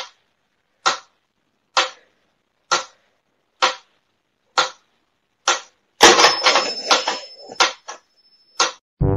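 Mechanical pyramid metronome ticking steadily, a little over one tick a second. About six seconds in, a burst of noise with a thin high whistle-like tone runs for about a second and a half over the ticks.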